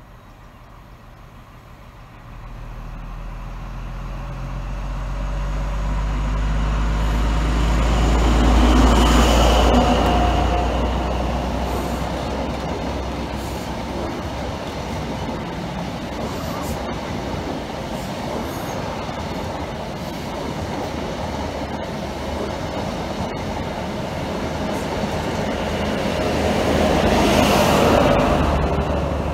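InterCity 125 High Speed Train passing. The leading Class 43 diesel power car's engine builds to its loudest about nine seconds in, then the coaches rumble by over the rails. The rear power car brings a second peak near the end.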